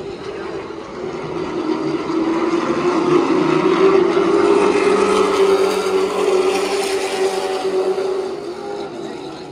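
Stock-car engines running on a short oval track, growing louder as the cars come past, loudest midway, then fading away.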